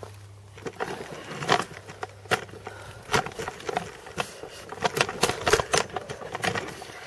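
Irregular crunching steps and knocks on dry ground close to a GoPro lying in the dirt after a mountain-bike crash, sparse at first and busier and louder from about three seconds in.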